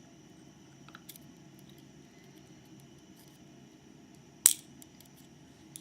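Small parts of a disassembled pin-tumbler lock being handled: a few faint ticks about a second in, then one sharp click about four and a half seconds in, over a low steady hum.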